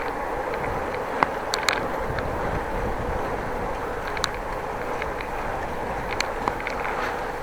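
Steady rolling and wind noise of a bicycle ride picked up by a camera, with a few sharp ticks or rattles at irregular moments.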